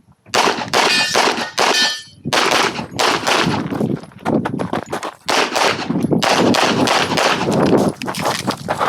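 Rapid handgun fire in a competition stage run, strings of quick shots with short pauses between them, and steel targets ringing with a clang when hit.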